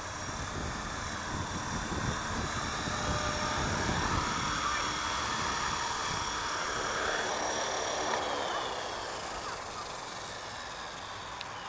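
HK-450 electric RC helicopter's rotor and motor whirring as it hovers low and touches down, then winding down from about eight seconds in, the pitch falling as the rotor slows.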